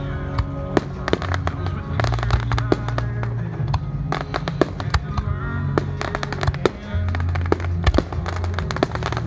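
Fireworks show with a dense run of sharp bangs and crackles, many bursts a second, over music with a heavy low end.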